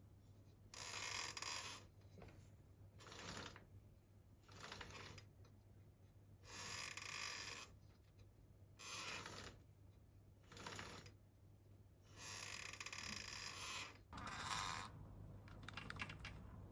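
Rough mechanical noise from the rear hub of a Kawasaki Ninja H2, coming in about eight short bursts separated by quieter gaps: the abnormal noise of a broken rear hub bearing.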